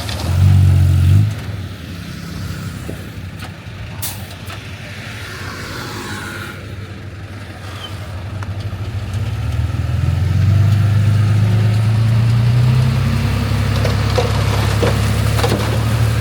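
Heavy diesel engine of construction machinery running. It surges loudly for about a second near the start, drops back, then builds up about ten seconds in and holds loud and steady.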